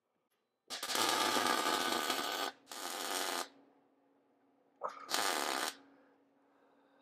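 Welding arc crackling in three bursts, the first the longest and a short pause between each, as a steel tube is welded into the mini bike's headset.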